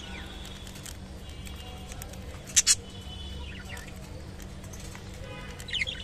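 Budgerigars chirping and chattering in short whistles and glides, with two short, sharp loud sounds close together about two and a half seconds in and a quick flurry of chirps near the end.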